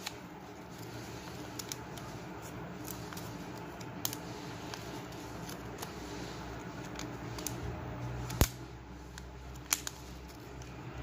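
Hands handling and peeling a thin plastic film packet on a workbench: light rustling with scattered small clicks, one sharper click about eight seconds in and two more a second later, over a low steady hum.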